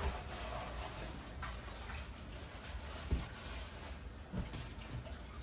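Quiet kitchen handling sounds as onion pieces are set down into oil on greaseproof paper, with a couple of soft taps about three and four and a half seconds in.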